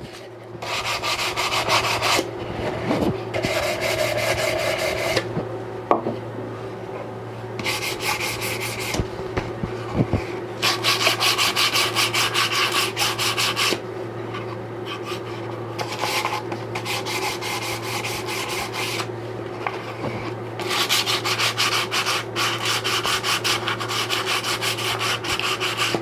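Bamboo box edges being hand-sanded with a piece of 400-grit sandpaper to take off the roughness left by the saw cut. Quick back-and-forth rubbing strokes come in spells of a few seconds with short pauses between, over a steady low hum.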